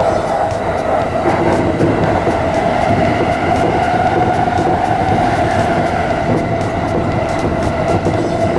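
Steady running noise of a Chuo Line rapid electric train heard from inside the front of the train: wheel and track rumble under a steady mid-pitched hum.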